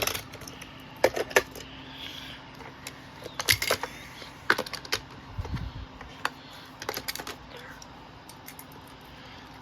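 Die-cast Hot Wheels toy cars and plastic track pieces being handled, making irregular light clicks and clacks, with a cluster of louder clatters about three and a half seconds in.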